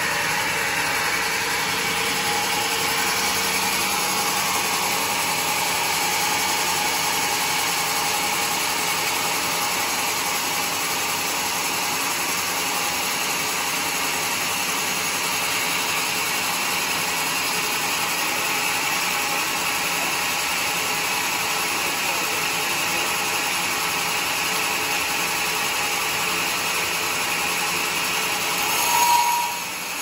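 Band sawmill blade cutting through a large teak stump log, a steady sawing noise. Near the end there is a brief louder high note.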